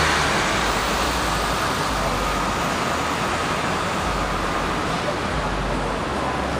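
Steady city street traffic noise, an even rush without distinct events, with a faint steady whine running through it.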